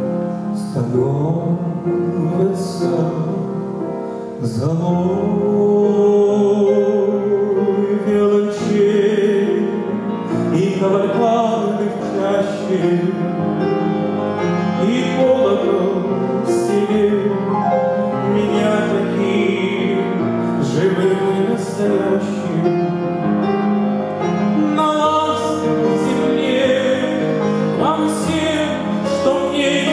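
A man singing a slow ballad into a microphone, accompanied on grand piano.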